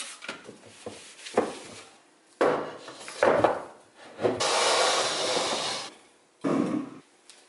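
A wooden box being handled on a countertop: a few wooden knocks, then a long, even rubbing scrape as cookbooks are slid into the box, and one more short scrape near the end.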